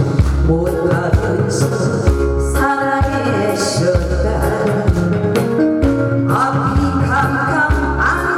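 A song played through a stage PA: a backing track with a steady drum beat and bass line, and a singer's voice coming in about three seconds in and again near the end.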